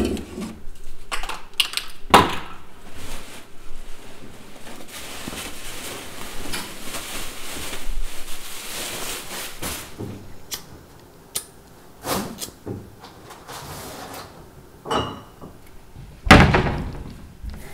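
Stretched painting canvases knocking and scraping against each other as they are handled and shifted, with a stretch of rustling in the middle. Near the end comes the loudest thunk, as a wooden cupboard door is opened.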